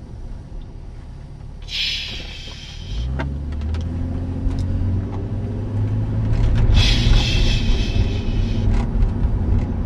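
Car engine and road noise heard from inside the cabin; about three seconds in the engine note rises as the car speeds up and stays stronger after. A hiss comes and goes twice.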